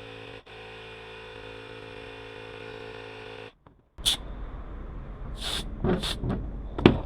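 Ryobi handheld tire-inflator compressor running steadily while inflating a bicycle tire, stopping about three and a half seconds in. Then come handling noises with a few short, sharp hisses and clicks, the loudest near the end.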